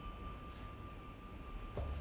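Quiet background with a faint steady high whine. A soft click comes near the end, followed by a steady low hum.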